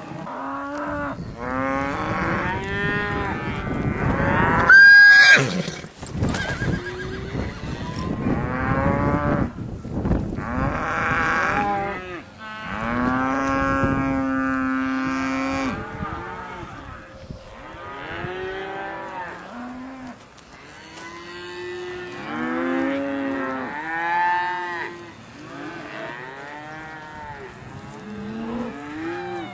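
A herd of cattle mooing, many calls overlapping one another, with one long steady low moo in the middle. About five seconds in, a brief loud high-pitched note stands out above the herd.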